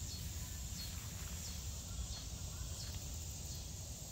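Outdoor ambience of a steady high insect drone with a few faint short chirps, over a low rumble on the microphone.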